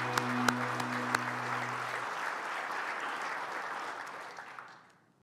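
Audience applause, many hands clapping, under the last held note of background music, which stops about two seconds in. The applause then fades out to nothing near the end.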